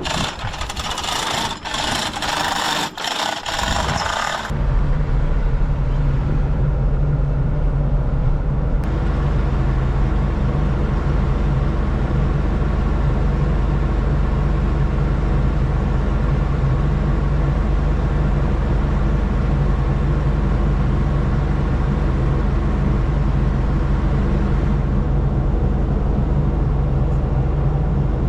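A broad rushing noise with a few brief breaks for about four seconds, then an engine running steadily at a constant speed.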